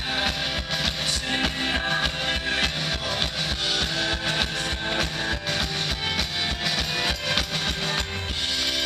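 Indie-folk band playing live: strummed guitars over a steady drum beat. Near the end the drums stop and a chord is left ringing.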